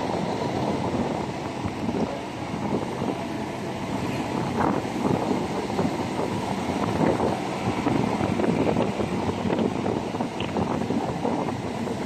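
Wind buffeting the microphone on the roof of a moving jeepney, a gusty rushing noise over the vehicle's running rumble.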